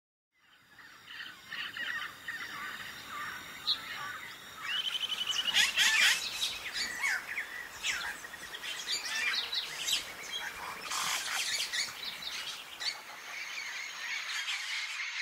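A bird chorus fades in just after the start: many birds chirp, whistle and trill over one another, busiest around the middle.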